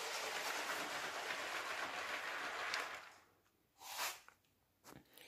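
Brick-built Lego TGV model train running on plastic track: a steady whirr and rattle of its electric motor and wheels, which cuts off suddenly about three seconds in. A brief faint sound and a small click follow.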